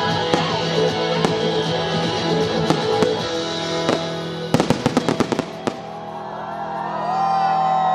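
Fireworks going off over background music: scattered bangs, then a quick string of about ten sharp cracks around five seconds in. Near the end the music fades and a sliding high-pitched tone sets in.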